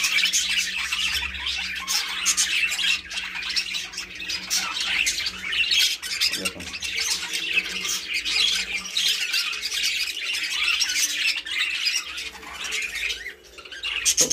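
Many budgerigars chattering and squawking together, a dense unbroken mix of short chirps and harsh calls.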